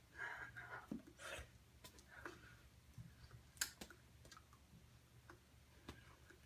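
Faint clicks and light taps from a person's hands and mouth while signing, with a few brief breathy puffs, over a low steady hum. The sharpest click comes just past halfway.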